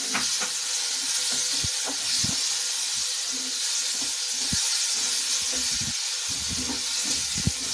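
Tomato purée and masala sizzling steadily in hot oil in a nonstick kadhai, with a spatula stirring and knocking against the pan now and then.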